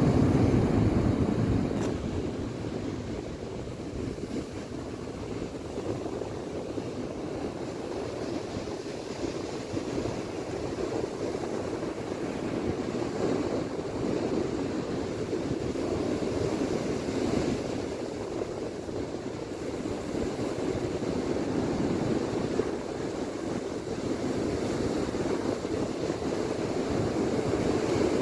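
Ocean surf breaking on a beach: a steady wash of waves that swells and eases, loudest in the first couple of seconds.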